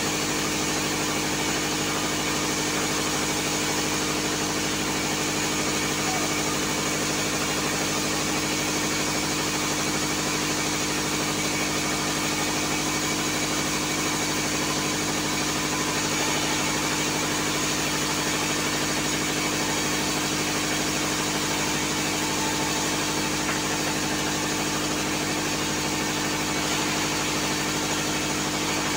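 Engine driving a bandsaw mill running steadily at an even pitch, without load while a log is loaded onto the carriage and the blade is not cutting.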